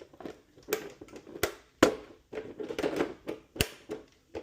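Hard plastic clicks and knocks as the RC car's body shell is lined up and pressed onto its quick-release hood pins, with handling rustle between the sharper knocks.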